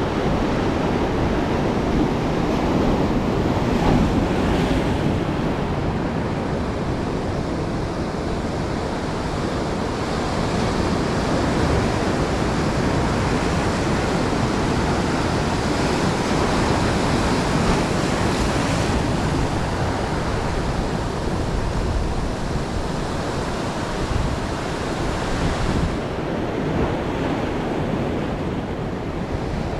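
Ocean surf breaking and washing over rock ledges: a continuous wash of waves that surges louder a few seconds in and again around the middle.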